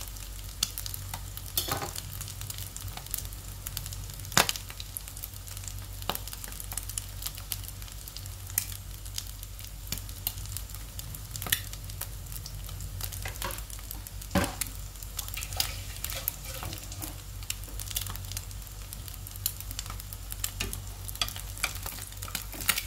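An egg frying in oil in a nonstick pan: a steady sizzle with frequent sharp pops of spitting oil.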